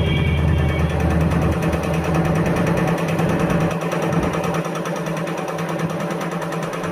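A small motor-driven machine running steadily with a fast, even rattle. A deeper hum underneath drops away after about a second and a half.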